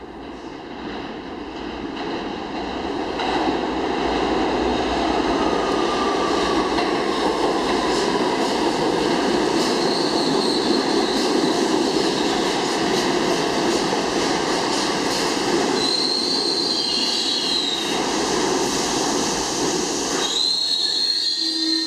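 New York City Subway R62A train rolling into an underground station. The rumble and rattle of steel wheels on the rails swell over the first few seconds, and high-pitched wheel squeal rises above it several times. About twenty seconds in, the rumble drops off sharply while a squeal carries on.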